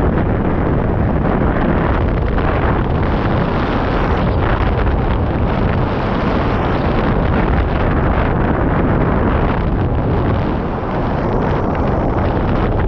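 Loud, steady wind buffeting on the microphone of a camera mounted on a hang glider in flight: the rush of airflow over the wing, easing briefly near the end.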